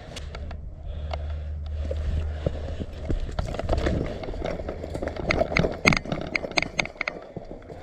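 Quick, irregular footsteps and knocks of a player moving on foot in airsoft gear. A low rumble on the microphone fills the first half, and sharp clicks and knocks come thick in the second half.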